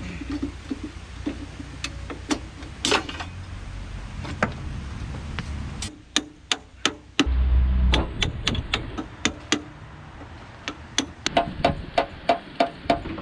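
Hand tool working on a Volkswagen air-cooled engine: strings of sharp metallic clicks and taps, one about six seconds in and a quicker, evenly spaced run near the end, with a short low rumble about seven seconds in.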